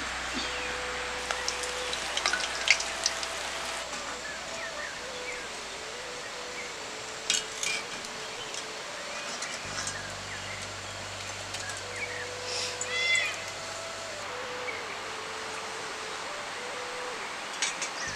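Oil sizzling steadily as athirasam fry in an iron kadai, with a few short bird chirps now and then.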